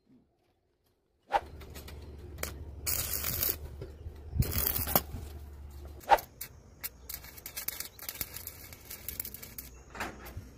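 Stick arc welding: the electrode arcs against the chain-link wire and steel post with a continuous crackling sizzle. It starts about a second in and flares louder a few times.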